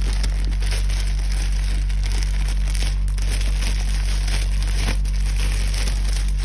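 Packaging being handled during an unboxing: wrapping paper or plastic crinkling and rustling without a break. A steady low electrical hum runs underneath.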